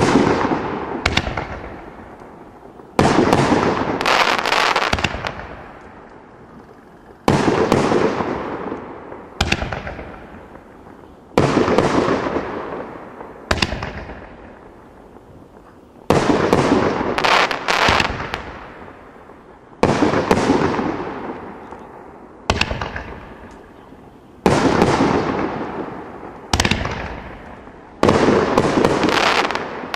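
Winda "Double Dealing" multi-shot consumer firework cake firing its aerial shells in sequence: a loud bang every two to four seconds, each fading away over a couple of seconds, with smaller sharp cracks in between.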